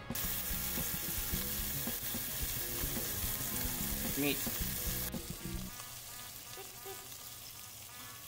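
Chuck steaks searing in hot oil in a stainless steel pot, a steady sizzle that starts suddenly and turns quieter about five seconds in.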